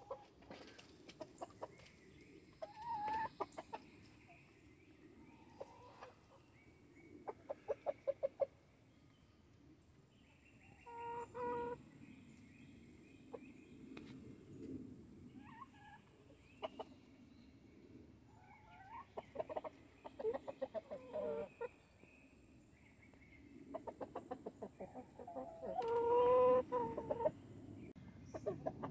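Chickens clucking: hens and roosters give bursts of rapid clucks, with two longer drawn-out calls, the louder one about three seconds before the end.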